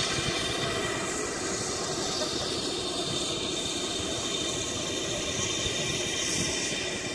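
Steam locomotive Tornado, an LNER Peppercorn A1 Pacific, standing at a station platform with a steady hiss, while wind buffets the microphone.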